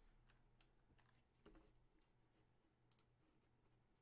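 Near silence with a few faint, irregular clicks of typing on a computer keyboard.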